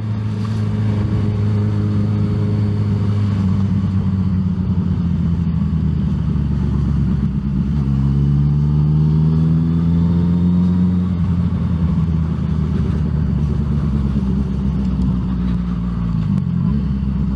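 Motorcycle engine running under way, its pitch climbing from about halfway as it speeds up and dropping near the end as it slows.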